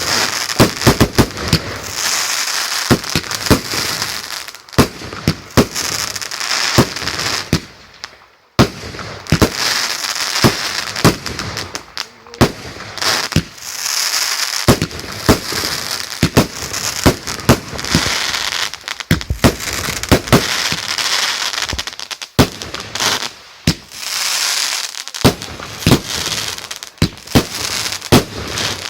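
Firework display: many sharp bangs going off in quick succession throughout, with dense crackling between them.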